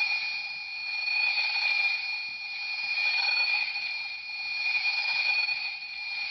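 Kamen Rider Ryuki's classic mirror sound effect, set off by a short press of the top-left button and played through the small speaker of a TTK Ryuki transformation belt toy. It is a steady, high, ringing tone that swells and fades in slow waves.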